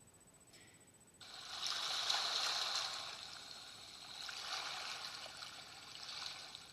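A recorded rushing-water ambience, like waves or a stream, played from a phone's white-noise app through its small speaker. It starts about a second in, swells and eases off twice, and cuts off near the end.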